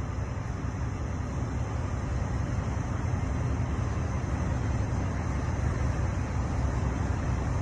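Steady low rumble of an idling engine with a hiss over it, heard from inside an empty steel shipping container.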